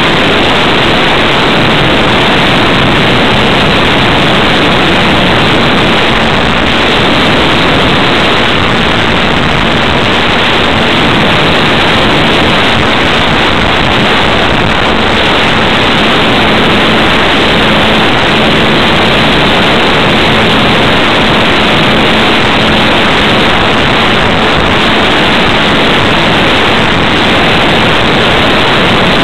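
Loud, steady rush of airflow and propeller noise picked up by a camera riding on a ParkZone T-28 Trojan electric RC plane in flight, with a faint steady hum underneath.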